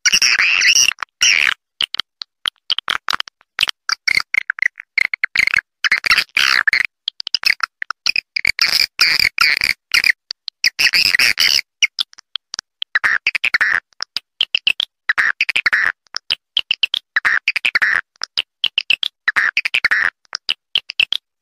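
Recorded swiftlet call of the kind played to lure swiftlets: rapid chattering, clicking chirps in phrases of one to two seconds with short breaks between them.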